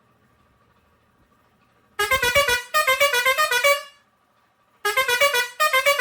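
Pioneairs 632S digital air horn with six steel trumpets playing a short tune of quick stepped notes after about two seconds of quiet. It starts another tune about a second later.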